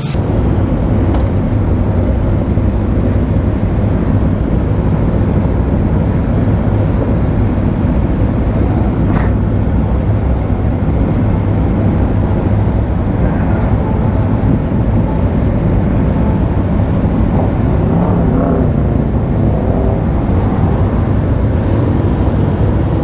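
Aprilia RSV4 RF motorcycle ridden at a steady speed: a loud, steady rush of wind and road noise on the microphone, with the V4 engine running underneath.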